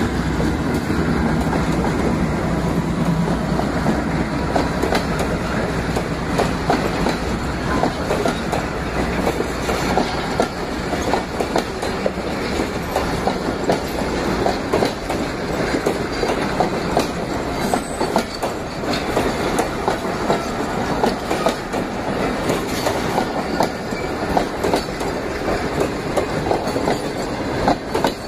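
Diesel locomotive passing close by, its engine running low and heavy for the first few seconds. A long train of passenger coaches then rolls past with a continuous clickety-clack of wheels over rail joints.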